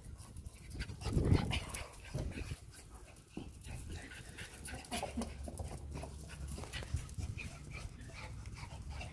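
Schipperkes panting and scuffling as they tug at a rope toy, with short clicks like claws on stone tiles. A louder, low, muffled burst comes about a second in.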